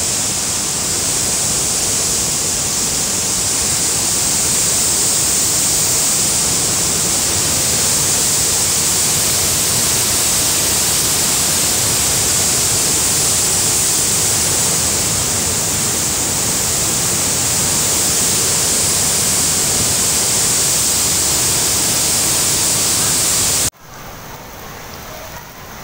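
Swollen floodwater torrent and waterfall rushing, a loud, steady, unbroken water noise. It drops off suddenly near the end to a quieter rush.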